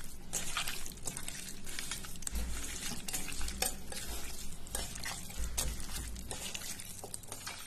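A bare hand mixing raw chicken in a wet spice marinade in a stainless steel bowl: steady wet squelching and squishing, with frequent small clicks against the steel.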